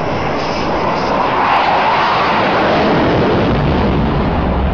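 Fighter jet passing low, a loud, steady rush of jet noise. Its pitch swells and bends around two seconds in, and a deep rumble builds near the end.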